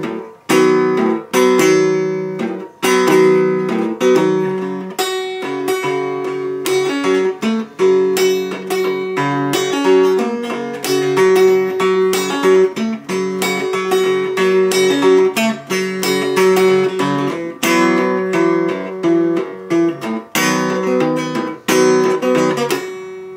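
Acoustic guitar finger-picked with no slide, playing a country blues riff: a steady run of sharply picked notes over a repeating bass. A chord is left ringing right at the end.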